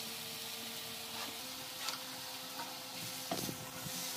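Mushrooms sizzling as they fry in a pan of onion-tomato masala, with a few light knocks of a spoon as they are stirred in.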